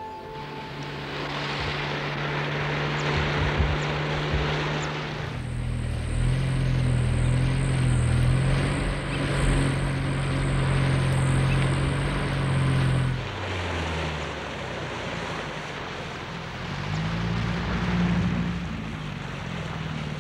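Engines running steadily, the hum shifting in pitch and level about five and about thirteen seconds in, with a thin high whine through the middle part.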